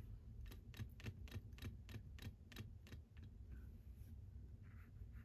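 A paintbrush tapping and working in a plastic watercolour half pan while picking up paint: a run of about ten faint clicks, three or four a second. A soft brushing sound near the end.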